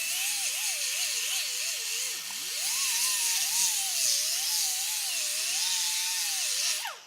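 Grinder with a 60-grit abrasive disc sanding down a patch of wood, with a loud hiss and a motor whine that wavers up and down as the load changes, dipping about two seconds in. The tool switches off abruptly near the end.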